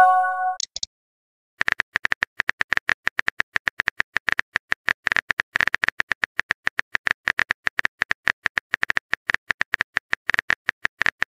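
Phone keyboard tap clicks, rapid and continuous, as a text message is typed out. At the very start a short message-sent chime of a few steady tones sounds, then a brief pause before the typing begins.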